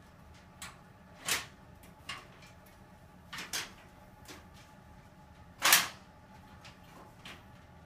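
Folding metal ironing board being handled: its tubular legs and folding mechanism knock and clank, about seven separate sharp clicks and clanks, the loudest about six seconds in.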